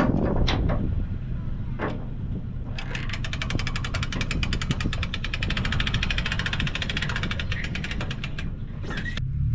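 A boat's outboard motor running steadily at low speed. For several seconds in the middle there is a rapid, even ticking, with a couple of short knocks near the start.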